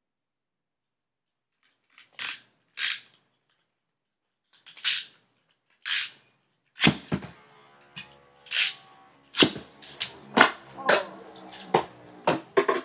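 Beyblade spinning tops in a plastic stadium: a few short sharp rasps, then from about seven seconds in a steady whir of spinning tops with repeated sharp clacks as they strike each other and the stadium wall.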